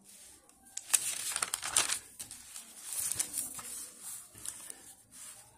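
Paper rustling and crinkling as the pages of a spiral notebook are handled and turned close to the microphone, in uneven bursts for a few seconds.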